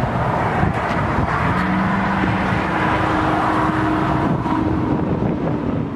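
Wind blowing hard across the microphone, with a motor vehicle's steady hum coming in about a second and a half in and fading out near the end.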